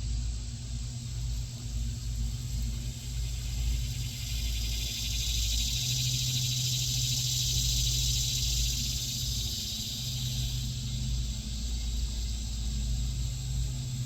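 Outdoor background noise: a steady low rumble, with a high hissing buzz that swells about four seconds in and fades about ten seconds in. No clear birdsong stands out.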